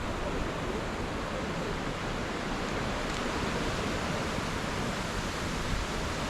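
Steady rushing outdoor background noise with no distinct events, like wind on the microphone or distant surf.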